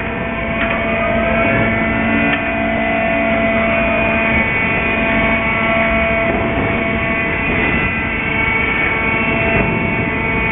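Container gantry crane's hoist machinery running steadily with a whine, as the spreader lowers a container into the ship's hold. A tone rises in pitch during the first couple of seconds.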